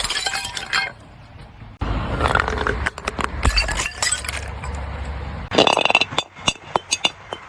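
Glass bottles breaking, crunching in several bursts with shards clinking. There is a burst at the start, another about two seconds in, another about three and a half seconds in and a fourth near the end, followed by scattered tinkles of glass pieces.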